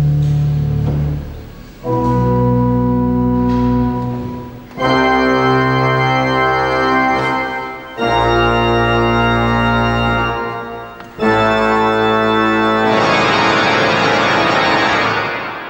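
Pipe organ playing a contemporary piece: a series of loud sustained chords, each held about three seconds with a short break between, then a dense high cluster of notes near the end that dies away.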